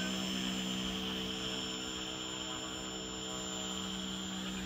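Small robotic catamaran's thruster motors running with a steady hum, a strong low tone with overtones, growing slightly quieter as the boat pulls away.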